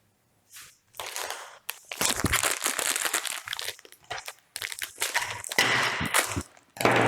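Packaging being handled, with a dense crinkling and crumpling that starts about a second in and goes on with a short break in the middle.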